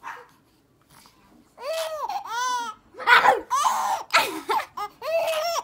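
Baby vocalizing in a run of high-pitched squeals and babble, starting after a short quiet moment.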